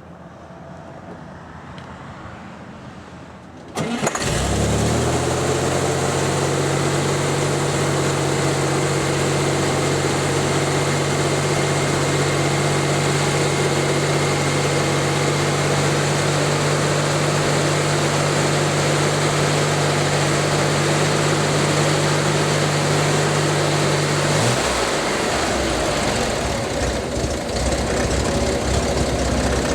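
1964 Chevrolet Corvair Spyder's rear-mounted, air-cooled, turbocharged flat-six starting up about four seconds in, after an oil change. It runs at a steady fast idle, then about twenty-four seconds in its speed drops to a lower idle.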